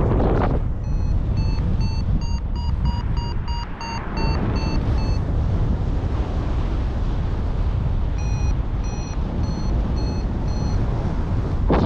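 Paragliding variometer beeping in short repeated tones, about three a second for several seconds and then again about two a second near the end, the sound of the glider climbing in lift. Steady wind rush on the microphone underneath.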